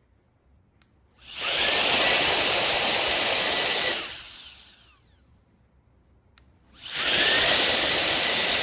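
CCV F33 cordless electric air duster blowing in two bursts: each time its high-speed motor spins up with a short rising whine into a loud, steady rush of air. The first burst lasts about three seconds and fades away as the motor winds down; the second starts about seven seconds in.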